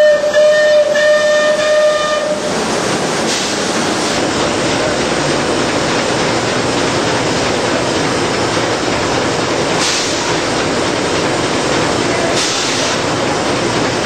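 A steam whistle blows one steady tone for about two and a half seconds, then cuts off. After it, the steam-powered sawmill runs on with a loud, even noise.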